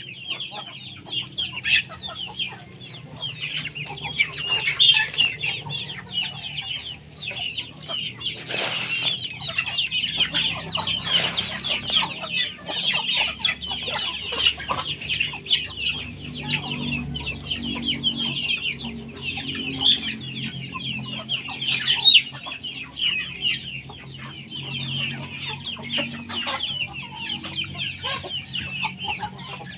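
A flock of free-range native chickens clucking and calling without a break, with a dense chatter of high-pitched calls over lower clucks and an occasional louder single call.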